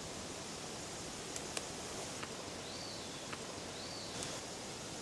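Quiet outdoor ambience: a steady hiss with a few faint clicks and rustles, and two short rising-then-falling bird whistles a little over a second apart in the second half.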